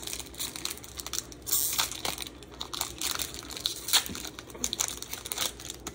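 Foil wrapper of a Pokémon card booster pack crinkling and tearing as it is opened by hand: a run of irregular crackles, louder about one and a half and four seconds in.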